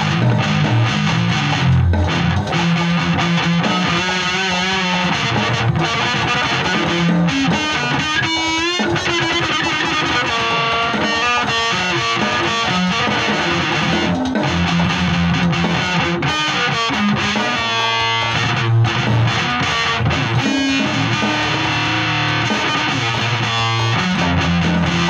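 Electric guitar played with distortion through an effects pedal, a continuous run of notes and chords with a warbling, bent passage about eight seconds in.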